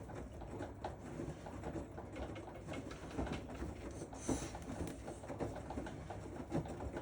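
A Moluccan cockatoo making a rapid stream of soft, low grumbling vocal sounds, over the steady low hum of a running washing machine.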